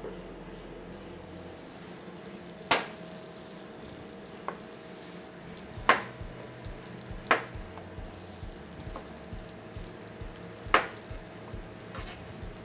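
Bacon frying in a pan with a steady sizzle, broken by about six sharp knocks at irregular intervals.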